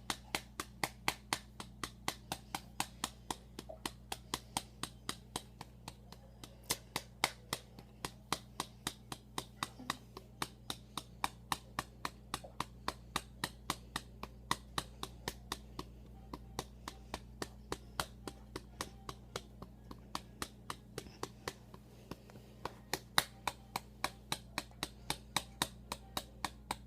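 A hand patting a baby doll's back in a quick, even rhythm of about three sharp pats a second, burping it, over a faint steady hum.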